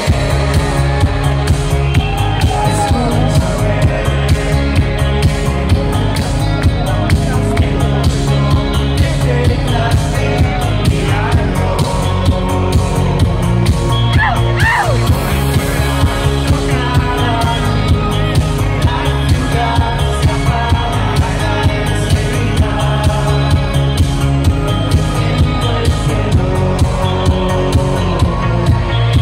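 Live pop song played loud over a concert PA, a steady pulsing bass beat under a sung vocal, heard from within the audience.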